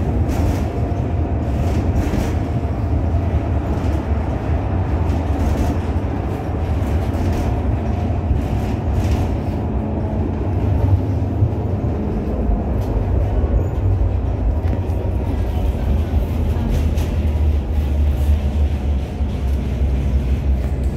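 Interior running noise of a V3A-93 articulated tram on the move: a steady low rumble with scattered short knocks.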